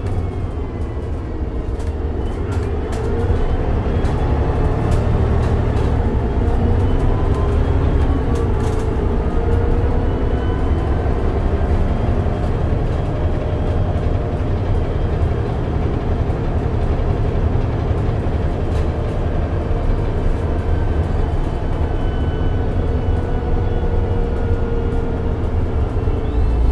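Mercedes-Benz O405NH bus with a Voith automatic transmission driving along: a steady low engine rumble, with a faint driveline whine that slowly rises and falls in pitch. It grows louder a few seconds in as the bus picks up.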